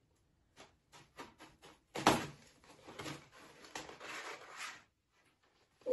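A box cutter scoring and slicing packing tape on a cardboard box, with the cardboard scraping and rustling as it is worked open. There are short scrapes and taps at first, a louder rip about two seconds in, then a longer stretch of scraping that stops near the end.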